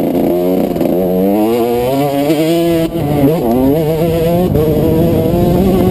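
Yamaha 125cc two-stroke dirt bike engine revving under acceleration, its pitch climbing, dropping sharply about three seconds in, then climbing again.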